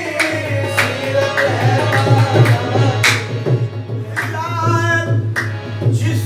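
Devotional song, a manqabat, sung by a solo voice over tabla, with regular drum strokes under a winding melodic vocal line.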